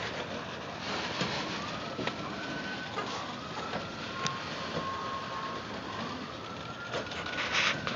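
Freight train of covered hopper cars rolling slowly past, steel wheels on rail with scattered clicks and knocks. A thin whine slowly rises and falls in pitch, typical of wheel squeal.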